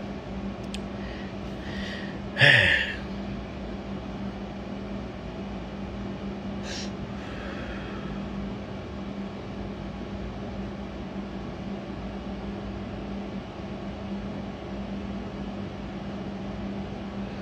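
Steady room hum with a constant low tone, like a fan or air conditioner running in a small room. A brief loud sound with a falling pitch comes about two and a half seconds in, and a soft breathy hiss follows near seven seconds in.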